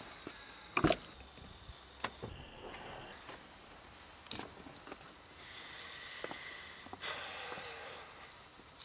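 A car door on a Mercedes-Benz saloon shuts with one sharp, solid thud about a second in, followed by a few light clicks and knocks.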